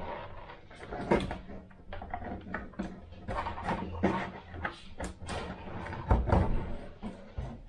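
Irregular clicks, knocks and light rattles of small model parts and tools being handled on a workbench, over a faint steady low hum.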